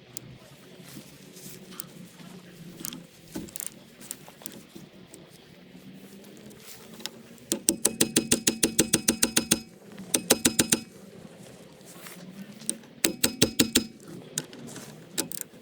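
Ratchet wrench clicking in quick, even runs of about ten clicks a second, three times, as a bolt on the motorcycle's front end is turned. Scattered clinks of tools and parts being handled in between.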